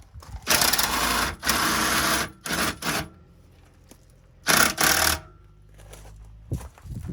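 Small electric motor running in about five short bursts, stopping and starting, the longest a little under a second.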